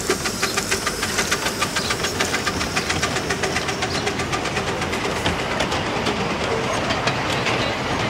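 Miniature steam train running past with its loaded passenger cars: a steady clatter with a quick, even rhythm of beats, about four a second, and some hiss, the beats growing less distinct after about five seconds as the cars go by.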